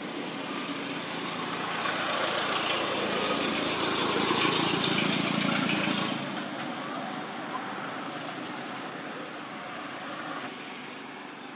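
A motor vehicle engine running. It builds up over the first few seconds, drops off suddenly about six seconds in, and carries on more quietly after that.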